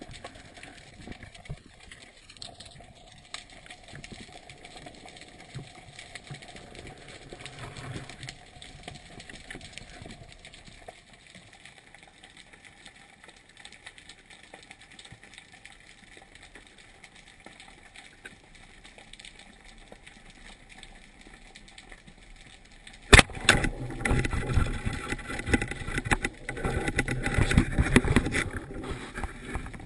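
Muffled underwater ambience heard through a diving camera's housing, with faint crackling and ticks. About 23 seconds in comes one sharp loud knock, followed by several seconds of loud, rough splashing and knocking noise.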